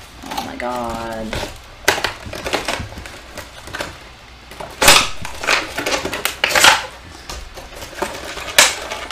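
Stubborn packaging being pried and wrestled open: sharp cracks, scrapes and clatter, loudest about five seconds in and again near the end. A brief low hum of a voice comes about a second in.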